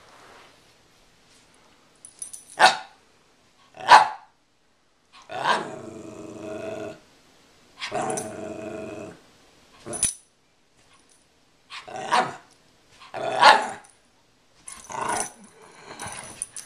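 Two rat terriers play-fighting: about six short sharp barks scattered through, and two longer play growls, each over a second long, in the middle.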